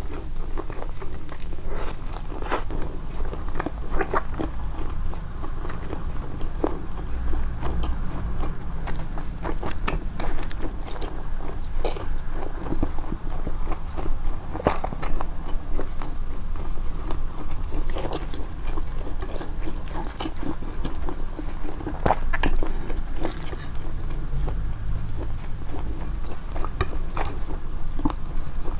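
Close-miked chewing of japchae glass noodles, amplified in editing: a steady run of irregular wet mouth clicks and smacks over a low background rumble.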